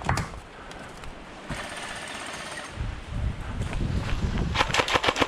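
Airsoft electric rifle firing a rapid full-auto burst of sharp clicks near the end, the loudest sound here. It is preceded by a single knock and some rustling and movement noise.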